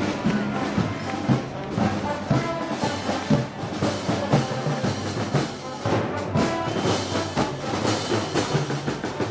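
Festival brass band with drums playing a march, brass chords over steady drum beats.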